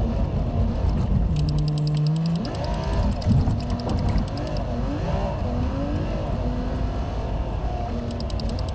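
Kenworth T680 semi truck's diesel engine running, heard from inside the cab as the truck drives slowly, its pitch rising and falling as the driver shifts and changes speed, over a low road rumble. A fast, high ticking runs through the first few seconds.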